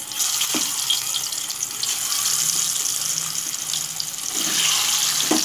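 Turmeric-coated boiled eggs sizzling and crackling in hot mustard oil in a pan as they are added, with two sharper spits, about half a second in and near the end.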